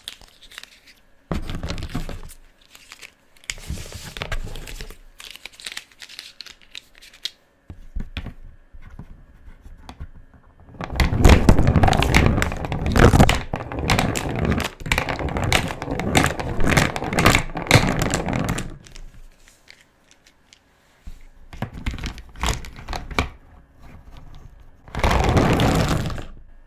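Felt-tip pen colouring on paper: quick scratchy back-and-forth strokes in bursts, with a long dense stretch of scribbling in the middle and short pauses between strokes.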